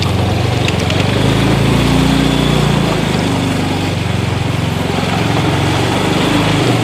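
Small motorcycle engine running at low revs, steady, with its pitch rising and falling a little.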